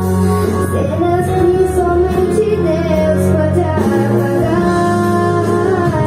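A song with a woman singing the melody over steady backing music.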